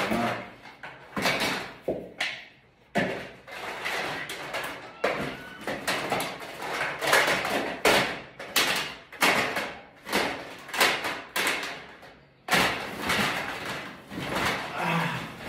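Plastic Nerf blasters clattering and knocking against each other as they are put into a fabric duffel bag, with rustling between the knocks.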